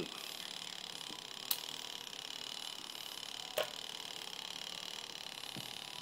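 An alligator test clip touched against the live bare end of a wire, giving two sharp clicks about two seconds apart and a fainter one near the end: contact made to check that current comes through to the motor. A steady faint hiss lies underneath.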